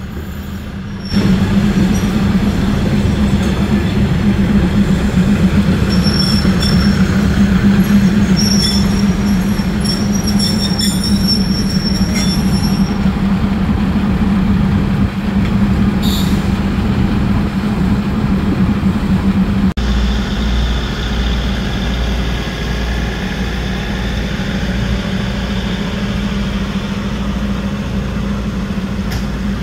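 Thai State Railway diesel railcar train passing slowly at close range: the underfloor diesel engines run with a loud steady drone, and the wheels squeal in thin high tones from about 6 to 13 seconds in. About two-thirds of the way through the drone drops lower and pulses as a different car passes.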